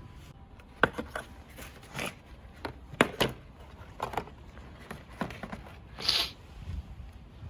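Tools being handled during a car tyre change: scattered light clicks and knocks, with a brief rustle about six seconds in.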